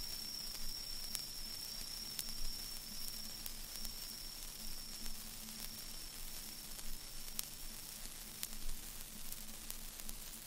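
Steady hiss and static with a faint low hum and scattered soft clicks, as at the end of a recording after the music has faded out.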